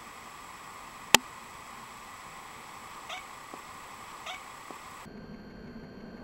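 Domestic cat giving two short, slightly rising meows about three and four seconds in. A single sharp click about a second in is the loudest sound.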